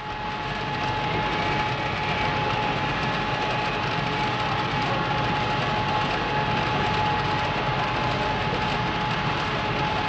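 Aircraft flight simulator running: a steady mechanical roar with one constant high whine through it, swelling in over the first second or so and then holding level.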